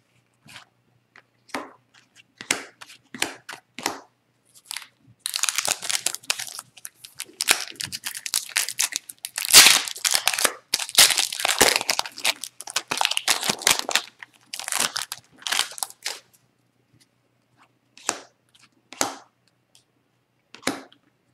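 Foil wrapper of an Upper Deck Series One hockey card pack being torn open and crinkled, a dense crackling that lasts about ten seconds. Before and after it come scattered crisp snaps of trading cards being flicked through by hand.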